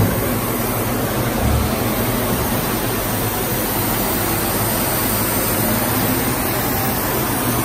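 Steady, even rushing noise of a large fan or air blower running, with a brief low thump about a second and a half in.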